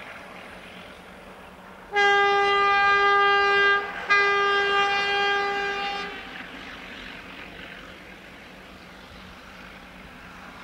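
Horn of a 48 class Alco diesel locomotive sounding two long single-note blasts, each about two seconds, with a brief break between them. The locomotives' diesel engines run underneath, working hard on the climb.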